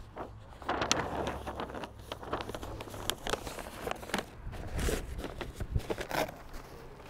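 Stiff brown masking paper crackling and crinkling as it is pulled up off the pavement and bunched by hand, in irregular crackles.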